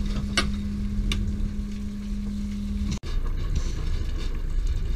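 Small fishing boat's engine running steadily, with a steady hum that cuts off suddenly about three seconds in. Two short clicks in the first second or so.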